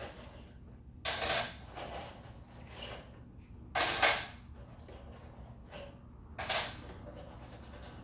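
Tape measure in use, three short rattling zips about two and a half seconds apart, the middle one loudest, as the steel blade is run out and retracted against the board.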